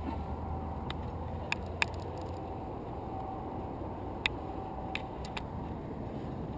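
A rock climber moving up a granite face: about six sharp, light clicks at irregular intervals as gear and hands knock against the rock, over a low steady rumble.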